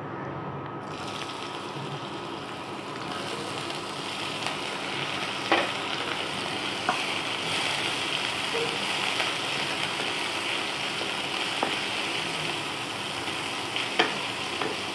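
Chopped onion frying in hot oil in a kadai, a steady sizzle that starts about a second in and grows fuller after a few seconds. A few light knocks break through it.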